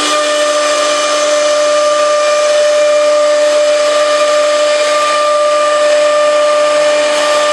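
Four-spindle CNC wood router running, its spindle spinning at speed: a steady high whine over a strong hiss.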